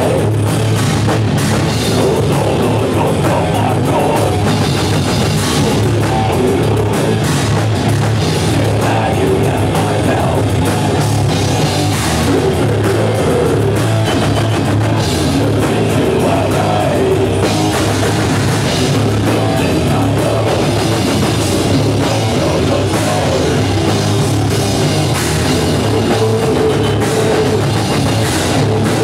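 Live heavy metal band playing loud and without a break: distorted guitars, bass and pounding drums.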